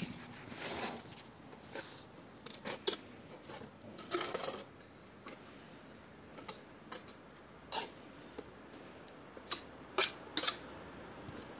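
Steel brick trowel working mortar and bricks: scattered sharp taps of the trowel on brick, with a few short scrapes of mortar being spread and cut off.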